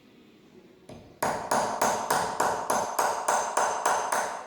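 Hammer striking metal in a steady rhythm, about three sharp ringing blows a second, starting about a second in and stopping near the end.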